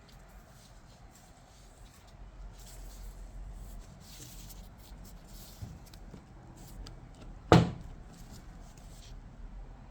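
Parts of a car's active centre differential (ACD) clutch pack being handled and taken apart: scattered light clicks and rustling, with one sharp, loud knock about three quarters of the way through.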